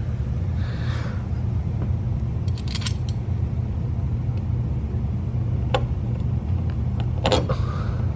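Steady low rumble with a few short, light clicks and taps as the plate frame and its screws are handled and fitted against the bumper.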